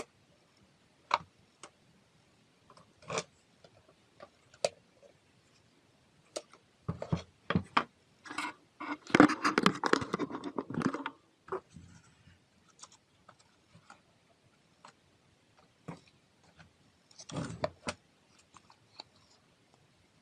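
Workbench handling noises: scattered clicks and knocks, with a few seconds of rattling and scraping about nine seconds in and a short scrape near the end.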